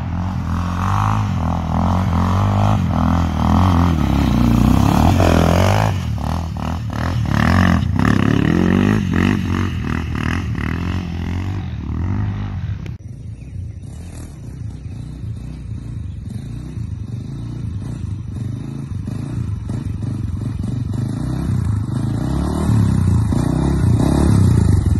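Honda TRX400EX sport quad's single-cylinder four-stroke engine revving and running as it is ridden hard. The sound drops in level about halfway through and builds to its loudest revving near the end.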